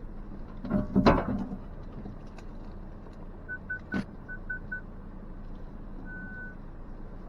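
Ford Ranger Tremor pickup driving slowly with its engine running low, a loud crunching thump about a second in and a sharp knock near four seconds. Six short beeps follow, then one longer beep: the truck's parking-sensor chimes going off at nearby branches.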